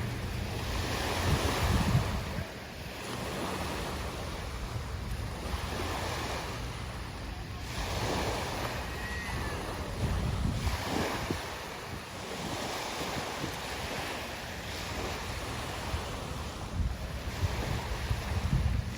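Small waves washing onto a shore, the surf swelling and falling back every few seconds, with wind buffeting the microphone in low gusts near the start and again near the end.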